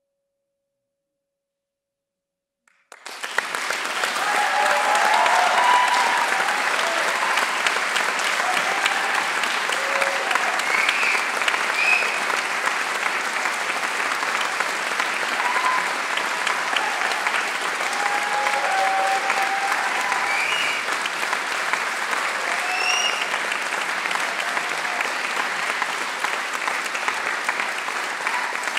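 A faint last vibraphone note fades out, and after about two seconds of silence an audience bursts into sustained applause, with scattered cheers from the crowd.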